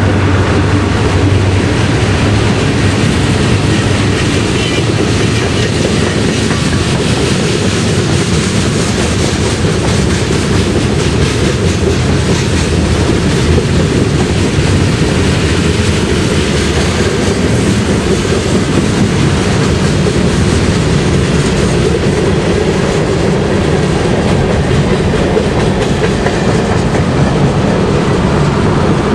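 Freight train rolling past at steady speed: a loud, continuous rolling noise of the rail cars, with wheels clicking over the rail joints.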